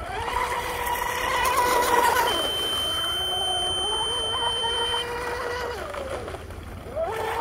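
Electric RC outrigger boat (Oxidean Oxi-digger on 4S) running fast across a pond: a steady motor-and-propeller whine that drops in pitch about two seconds in, climbs back, and falls away again near the end as the throttle is eased.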